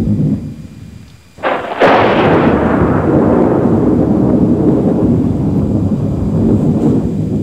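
Thunder: a low rumble dies away, then a sharp crack about a second and a half in, followed by a long low rumble.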